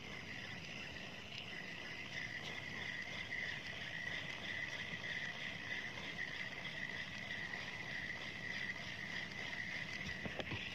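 Steady high-pitched insect buzz over a faint hiss of wind and water.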